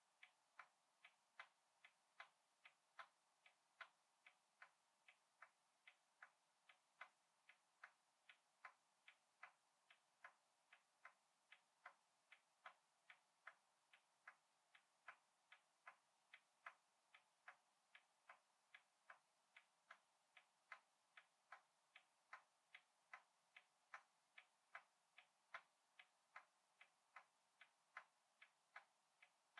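Faint, even ticking of a clock, about two ticks a second with a slight tick-tock alternation in strength.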